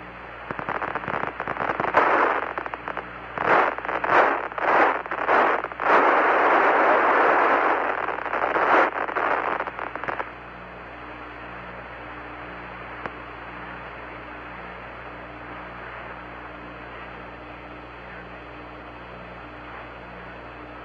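Static on the Apollo lunar module's air-to-ground radio link: about ten seconds of loud, crackling bursts of hiss, pulsing several times with one long stretch in the middle, as the downlink breaks up in a signal dropout. Then a steady, quieter radio hiss.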